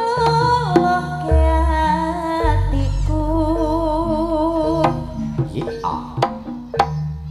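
Campursari koplo band playing live: long held, wavering sung notes over sharp hand-drum strokes and a deep bass, the music thinning out near the end.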